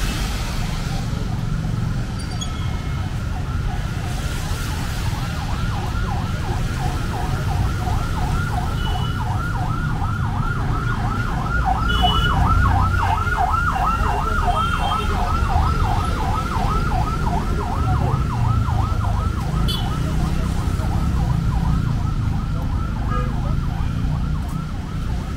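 Emergency vehicle siren sounding a fast yelp, about three rises a second, growing louder to a peak about halfway through and then fading. It sounds over the low rumble of road traffic.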